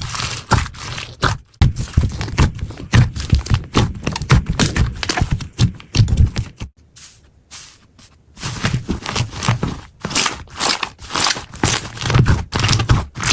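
Slime being worked by hand: a dense run of quick sticky clicks and pops with soft squishing thuds, quieter for a moment a little past the middle.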